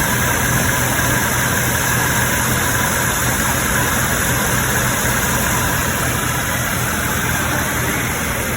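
2006 BMW 650i's 4.8-litre V8 idling steadily, warm after about five minutes of running.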